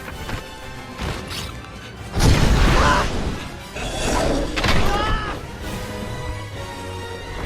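Film soundtrack: dramatic orchestral music with crashes and impacts, the loudest hit about two seconds in.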